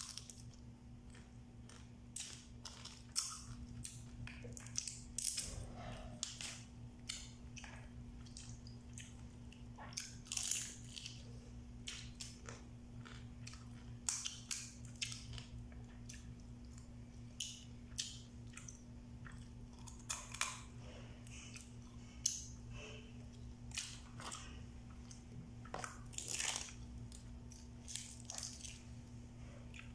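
Cooked blue swimming crabs being cracked and pulled apart by hand and eaten: irregular sharp cracks and crunches of shell, with chewing of the crab meat, scattered throughout.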